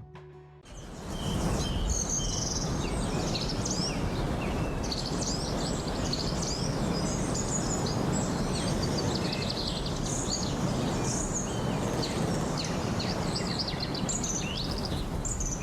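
Outdoor woodland ambience that starts about a second in: many small birds chirping over a steady rushing background noise.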